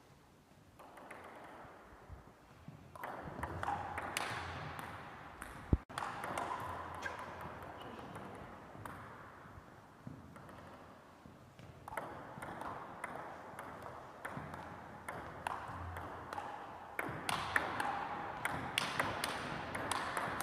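Table tennis rallies: the ball clicks back and forth between rubber paddles and the table in quick runs of hits, echoing in a large gym hall. A single sharp knock about six seconds in is the loudest sound.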